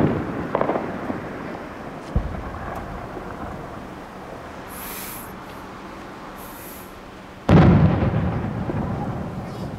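Fireworks shells bursting with deep booms that roll away in a long echoing rumble: one right at the start, a sharper bang about two seconds in, and another big boom about seven and a half seconds in that fades over about two seconds. Two short hisses come in between.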